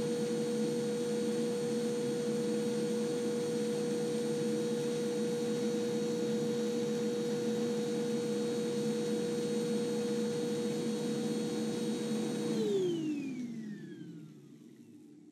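Upright vacuum cleaner running steadily, its motor giving a strong whine over a rush of noise. Near the end it is switched off, and the motor spins down in a falling whine as the noise dies away.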